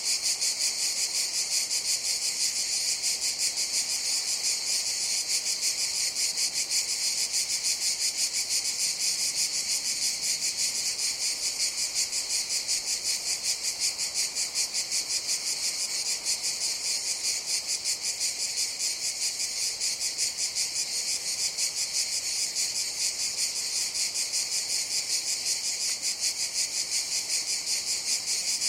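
Cicadas singing in chorus: a continuous high-pitched buzz with a fast, even pulse.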